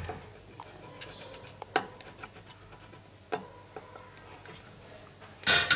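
A few sparse, light clicks and taps from handling on a workbench, with a short rustle near the end.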